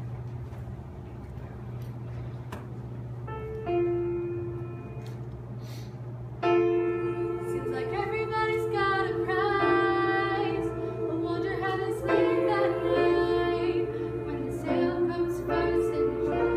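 A group of girls singing together a cappella in harmony, starting about six and a half seconds in, preceded by a single held note a few seconds in.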